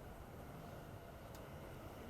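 Faint, steady low rumble of railway-station ambience, with one faint tick a little past halfway through.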